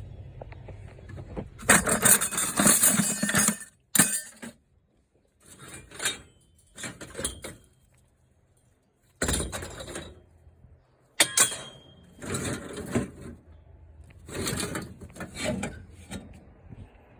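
Scrap metal being handled: irregular bursts of clattering and rattling with sharp clanks between them. One clank about eleven seconds in leaves a brief metallic ring.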